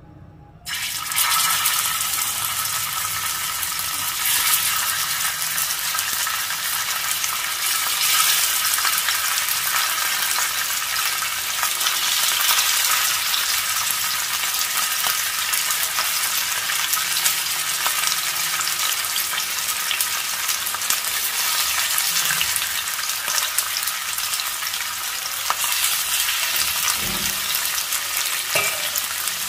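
Masala-coated sardines sizzling in hot oil on an iron dosa griddle. The sizzle starts suddenly about half a second in as the first fish goes into the oil, and swells every few seconds as more fish are laid in.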